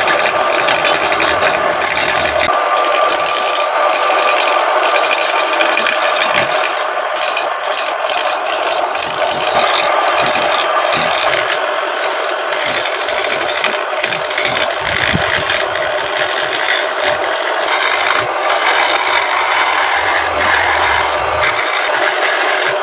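A scrap sickle blade used as a turning tool cutting into a log spinning on a homemade belt-driven wood lathe: a steady, loud, rough scraping hiss of the wood being cut, with the lathe running underneath.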